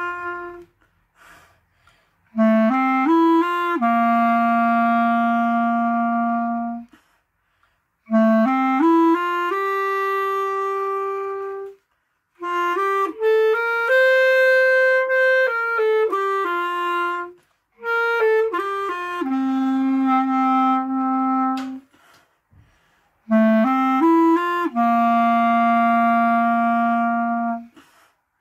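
Solo clarinet playing a slow unaccompanied melody in five phrases. Each phrase opens with a quick run of rising notes and settles on a long held note, with short pauses for breath in between.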